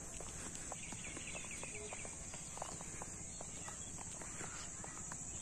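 Footsteps walking on a paved road over a steady high-pitched insect chorus, with a short bird twitter about a second in.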